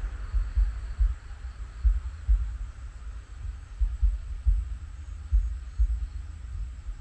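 Wind buffeting the microphone: an irregular low rumble with uneven thuds.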